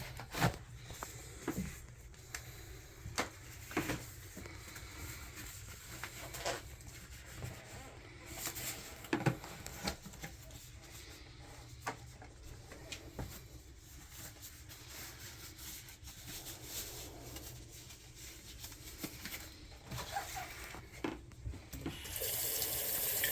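Scattered clicks and knocks of tools being handled at a bathroom sink, then about a second before the end a faucet is turned on and water runs with a steady hiss into the sink.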